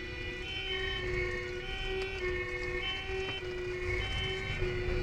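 Fire engine's two-tone siren alternating between two pitches, heard from inside the cab over the rumble of the truck's engine and road noise on an emergency run.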